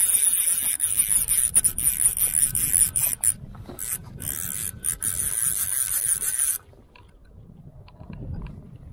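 Fly reel's click-and-pawl drag ratcheting in a fast rasping buzz as line runs through it under a hooked large white-spotted char, cutting off abruptly about six and a half seconds in.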